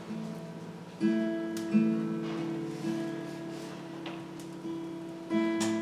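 Acoustic guitar strumming slow, ringing chords, with a fresh strum about a second in, twice more over the next two seconds, and again near the end.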